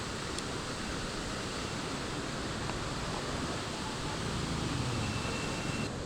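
Steady rush of falling water from a waterfall. The sound changes abruptly near the end.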